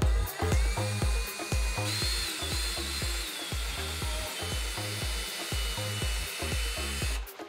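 Cordless drill motor whining steadily as it drills into a desk countertop, its pitch stepping up about two seconds in and easing down a second later, then stopping just before the end. Background music with a steady beat plays under it.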